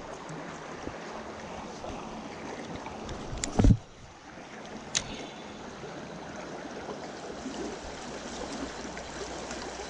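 Steady rush of flowing stream water, with a brief loud low bump about three and a half seconds in and a sharp click about five seconds in.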